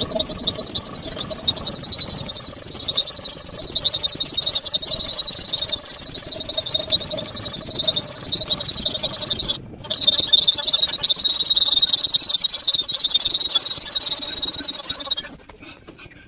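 Air pump inflating a PVC inflatable boat's main chamber: a fast, even pulsing hiss, with a short break about ten seconds in, stopping about a second before the end.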